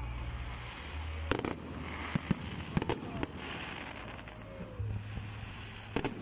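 Aerial fireworks display: several sharp bangs of shells bursting, about five over the few seconds, over a constant crackle, with a low steady hum underneath.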